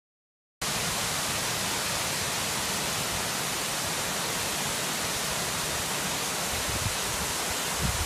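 Waterfall's steady rushing, cutting in abruptly about half a second in. A few low wind bumps on the microphone come in near the end.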